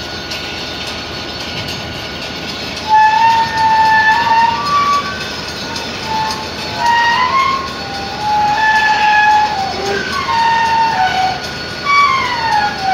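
Freight rail cars rolling with their wheels squealing: high, wavering tones that slide up and down in pitch and come and go, starting about three seconds in, over the steady rumble of the moving train.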